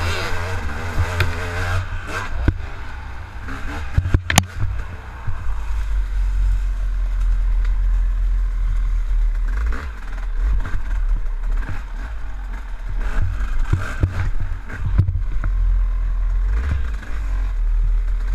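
KTM dirt bike engine running and revving as the bike is ridden, under a heavy low rumble, with a sharp knock about four seconds in.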